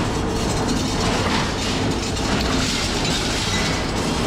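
Steady, loud din of sheet-metal working machinery running in a factory hall, with a faint steady hum underneath.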